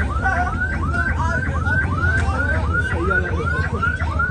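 Several electronic siren-style horns yelping together in fast, repeated rising-and-falling chirps, several a second and overlapping, over a steady low hum.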